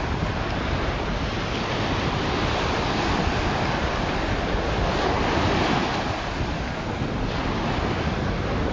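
Small surf washing in and out over the sand, with wind buffeting the microphone. The wash swells a little midway and eases off.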